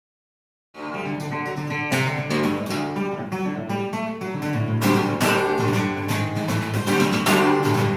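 Acoustic guitar strumming chords, starting abruptly just under a second in after silence.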